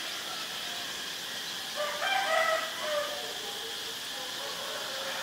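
A rooster crows once, a little under two seconds in, for about a second. Under it runs a steady high insect drone.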